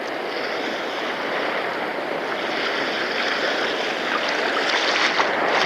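Sea waves washing against the shore: a steady rushing noise, with a few light ticks near the end.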